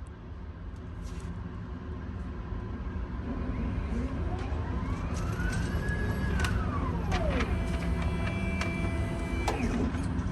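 A low vehicle rumble grows louder, with a siren-like tone that rises and falls once in the middle, and a few sharp clicks near the end.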